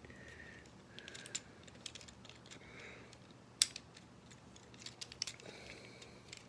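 Faint scattered clicks and taps of a plastic Transformers action figure being handled and its leg joints moved, with one sharper click about three and a half seconds in.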